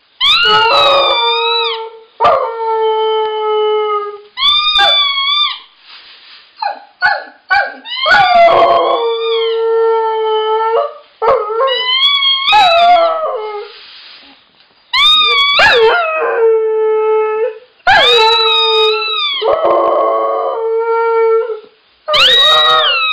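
Husky howling over and over, about eight howls in a row. Each howl bends up and down in pitch, then settles into a long steady note, with a few short yelps between them.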